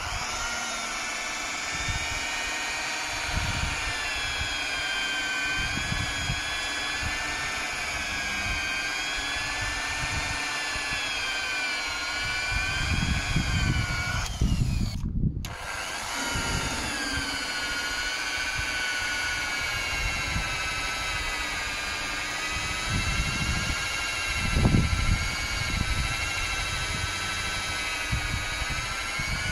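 Electric rotary polisher running with a foam pad pressed on a plastic headlight lens, polishing out the haze. Its steady motor whine wavers slightly in pitch under the changing pressure. It cuts out for a moment about halfway through, then runs again.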